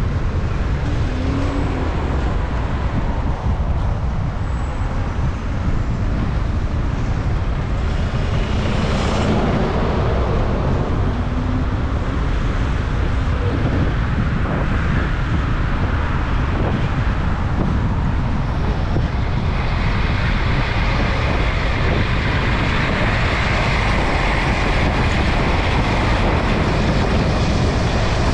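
Steady city traffic and road noise heard while cycling along a street, with a brief louder swell about nine seconds in, like a vehicle passing close.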